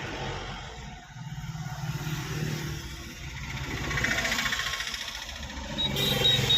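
A motor vehicle engine running, its sound swelling and easing twice. A high steady tone starts near the end.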